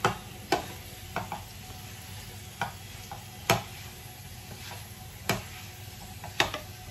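Wooden spatula knocking and scraping against a nonstick frying pan as pan-fried potato slices are tossed with dry spices: irregular sharp knocks over a steady low frying sizzle.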